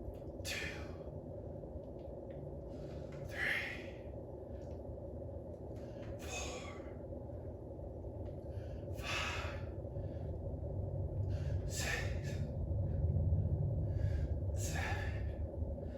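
A man breathing out hard in rhythm with dumbbell press reps: six forceful, breathy exhales about three seconds apart, the later ones a little louder.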